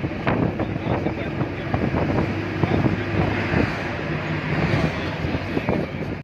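Vehicle travelling along a road, heard from inside: a steady engine and road rumble with wind buffeting the microphone and many small rattles and knocks.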